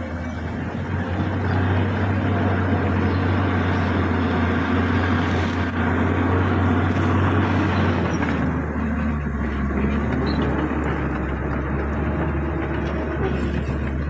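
Bulldozer's diesel engine working steadily, its pitch dropping slightly about eight seconds in.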